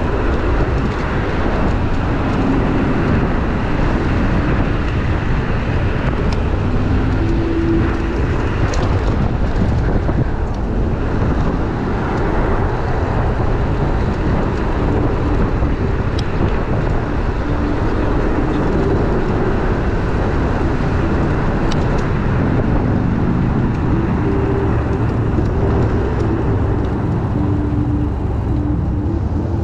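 Steady wind rush and road rumble on a body-worn action camera's microphone while riding an electric moped along a paved path, with a few short, faint tones now and then.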